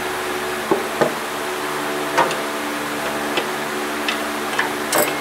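Scattered light clicks and taps as a serpentine belt is worked back onto the pulleys of an engine by hand and with a belt tool, over a steady hum.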